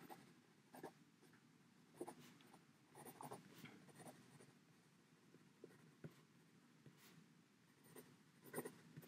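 Faint, irregular scratching of handwriting on paper: short strokes with pauses between them.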